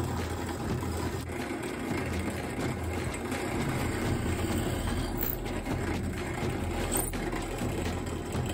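Drill press motor running steadily while its bit bores holes into a wooden rifle stock.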